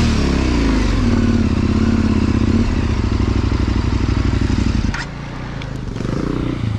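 Adventure motorcycle engine revving hard as it climbs a rough off-road section, the pitch rising and falling with the throttle. About five seconds in there is a sharp click, and the engine then drops to a quieter running note.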